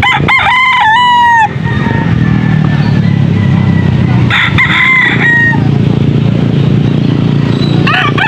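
Caged gamecock roosters crowing three times: a loud crow right at the start, another about halfway through, and a third beginning just before the end, over a steady low rumble.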